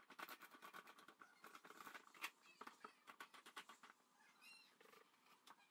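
Faint, rapid small clicks and knocks of wooden rails and corner clamps being handled on the floor, with a short high squeak near the end.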